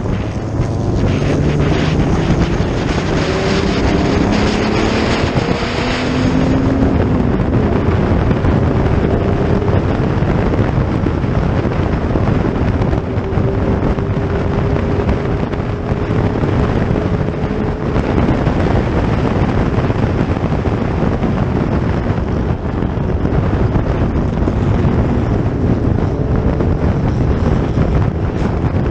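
Historic racing car engines running hard on a race circuit, their pitch rising and falling as cars go by, with wind noise on the microphone.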